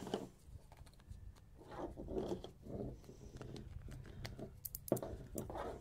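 MC4 solar connector being tightened with plastic MC4 spanners: faint plastic scraping and handling noise with a few light clicks, a sharper click about five seconds in.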